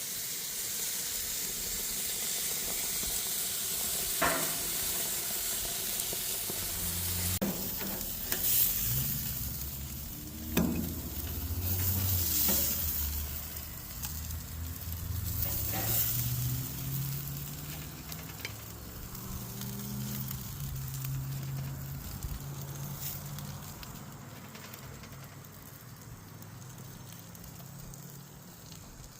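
Meat sizzling on a grill, a steady hiss broken by several sharp clicks. A low, wavering hum comes and goes through the middle.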